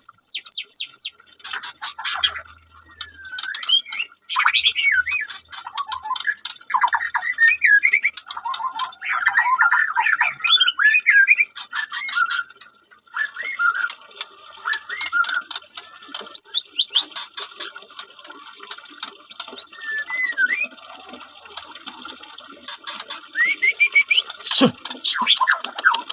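White-rumped shama (murai batu) singing a long, varied song: whistled phrases that slide up and down, mixed with rapid clicking and rattling notes, with a short pause about halfway through.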